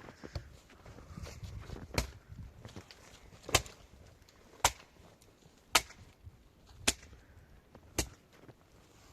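Axe chopping wood: six sharp strikes, roughly one a second.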